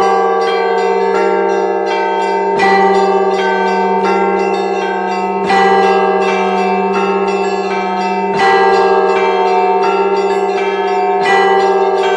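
Russian Orthodox church bells: a set of eight bells rung together in a trial peal. A heavy low bell strikes about every three seconds, with quick patterns of smaller, higher bells between its strokes.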